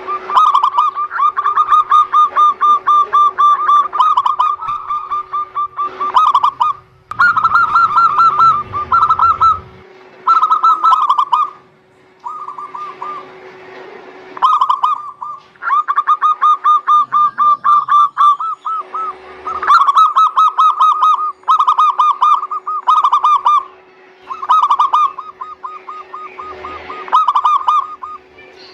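Zebra doves (perkutut) cooing in long phrases of rapid, pulsed notes, broken by short pauses every few seconds, over a steady low hum.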